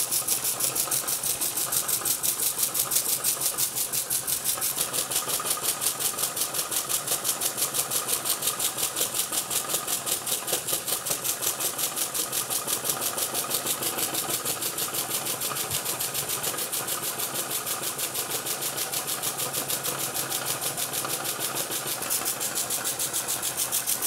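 Small single-cylinder model steam engine running on live steam at a steady speed, giving a rapid, even chuff-chuff rhythm. Steam hisses out around the poorly sealed joint between the unmachined frame and the cylinder and from the bottom of the cylinder.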